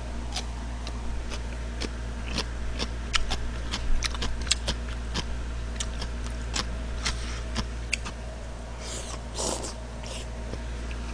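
Close-miked eating of jjamppong noodles: a run of sharp wet chewing and lip-smacking clicks, then a noisy noodle slurp about nine seconds in, over a low steady hum.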